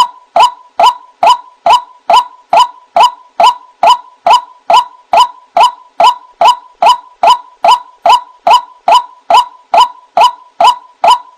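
White-breasted waterhen calls repeated at a very even pace, a short 'wak' note about twice a second, as played from a lure-call recording for trapping the bird.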